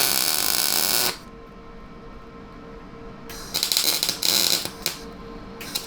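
MIG welder laying tack welds on the mini bike's fork tubes and frame: a crackling, sputtering arc that lasts about a second at the start, comes back for about a second and a half partway through, and starts again at the very end.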